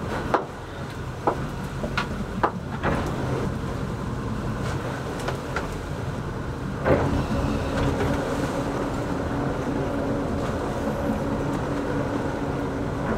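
Fishing boat's motor hum and wind on the open sea, with a few sharp knocks in the first three seconds and a louder one about seven seconds in as a snapper is swung aboard and handled on deck. After that last knock a steadier pitched hum joins the boat noise.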